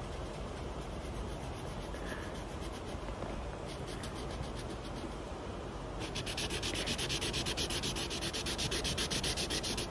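Colouring pen scribbling back and forth on a colouring book page as an area is shaded in. The rubbing strokes grow louder and more regular from about six seconds in, at about five strokes a second.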